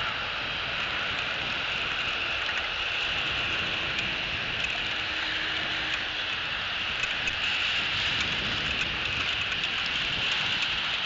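Rain falling: a steady hiss with scattered faint ticks of drops.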